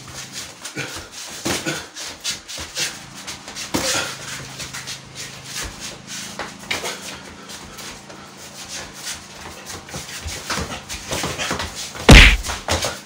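Scattered thuds and scuffs of two men sparring in boxing gloves, punches and shuffling feet, over a faint low hum, with one loud thump about twelve seconds in.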